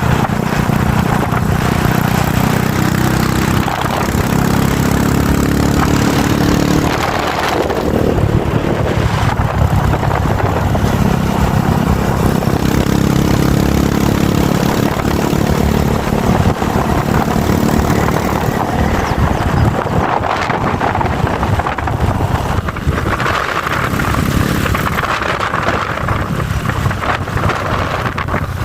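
Honda Fan 125 motorcycle's single-cylinder four-stroke engine running while being ridden, its pitch shifting up and down several times, with steady wind rush.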